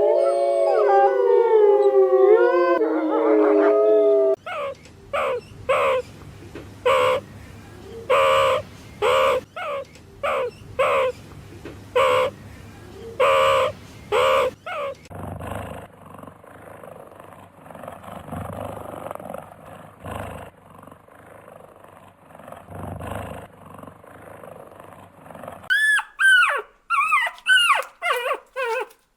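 Canines vocalizing: several overlapping howls sliding in pitch for the first few seconds, then a string of short barks about one a second. After that comes a quieter, rougher stretch, and near the end a run of quick high yips that fall in pitch.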